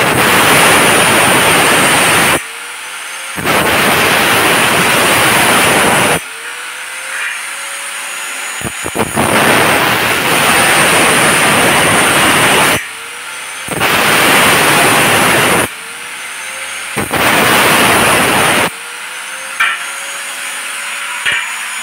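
Angle grinder with a cut-off disc cutting through 2x2 galvanized iron square tube: five loud grinding, hissing cuts, each a few seconds long. Between them the grinder runs free off the metal, its whine climbing in pitch as the motor speeds up unloaded.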